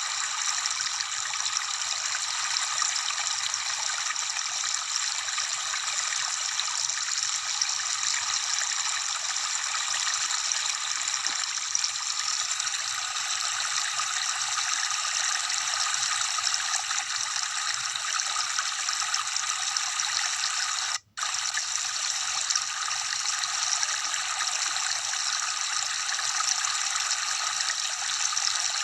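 Steady rush of falling water from a waterfall, a thin hiss with no deep rumble. It drops out completely for a split second about two-thirds of the way through.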